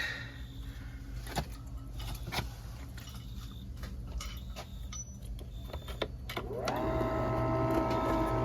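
Scattered clicks and knocks of handling, then about six and a half seconds in a small electric motor spins up quickly and runs with a steady whine.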